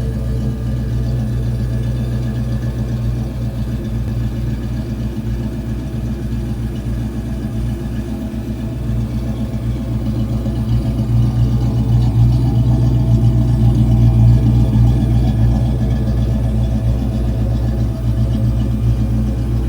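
1993 Ford Mustang Cobra's 5.0 L V8 running through an off-road H-pipe and Flowmaster 44 mufflers: a steady, deep exhaust note at idle, swelling a little louder around the middle before settling back.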